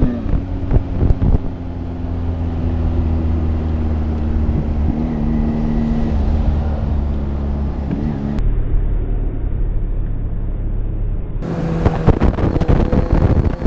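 Kawasaki Z1000's inline-four engine running at a steady highway cruise, with wind rush on the microphone. Near the end the sound turns rougher and the engine note slowly rises.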